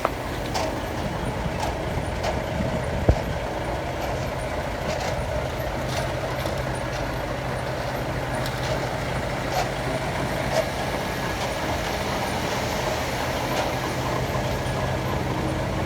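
Heavy diesel construction machinery running steadily, with one sharp knock about three seconds in.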